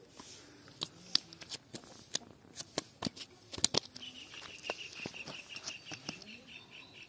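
Cast-net mesh rustling and clicking as it is handled and small fish are picked out of it, in scattered sharp ticks. From about four seconds in, a fast run of high chirping notes, about five a second, runs on until near the end.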